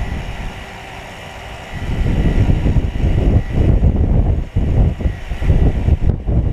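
Wind buffeting the microphone: an uneven low rumble that picks up sharply about two seconds in and keeps gusting.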